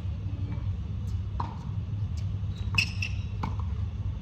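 Tennis balls being struck and bouncing on the court: a few separate sharp hits, the loudest near three seconds with a brief ringing ping, over a steady low rumble.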